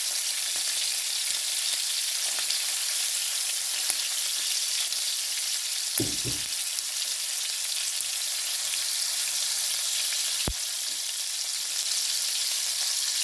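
Seasoned chicken pieces sizzling steadily as they brown in hot oil in a pan. A brief thump comes about six seconds in and a sharp click about ten seconds in.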